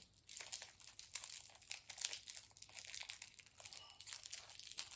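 Plastic snack wrapper crinkling in irregular crackles as it is handled and pulled open.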